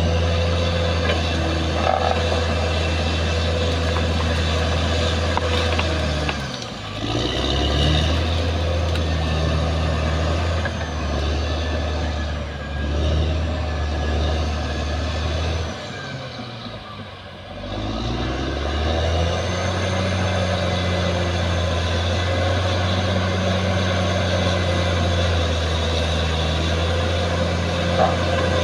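Caterpillar D6R XL bulldozer's diesel engine running steadily under load, with a thin high whine alongside. The engine note drops briefly about six seconds in and again for about two seconds just past the middle, then rises back to full.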